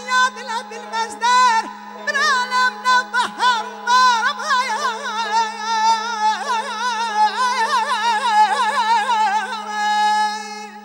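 Male Azerbaijani mugham singer (khanende) singing a long, high, ornamented vocal line, the pitch wavering rapidly in the trilled tahrir ornaments of mugham, ending shortly before the close.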